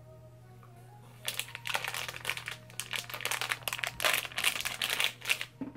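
Plastic gummy-candy bag crinkling as it is pulled open by hand: a dense run of crackles starting about a second in and lasting about four seconds.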